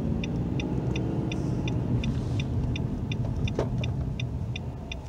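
Inside a moving car's cabin, a steady low engine and road rumble runs throughout. Over it the turn-signal indicator ticks evenly, about three clicks a second, and stops shortly before the end.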